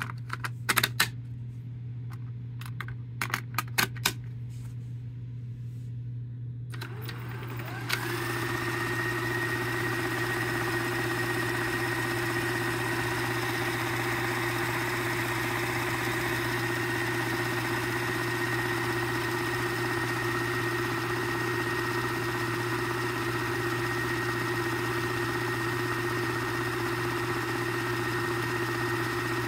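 Telex Copyette 1 & 3 cassette duplicator: a few sharp clicks as the master cassette is pushed into its slot, then about seven seconds in the tape drive spins up with a rising whine and settles into a steady high-pitched running sound as it speed-copies the tape. A low hum runs underneath.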